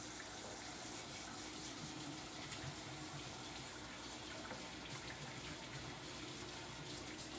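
Tap water running steadily into a sink as hands are rinsed under it.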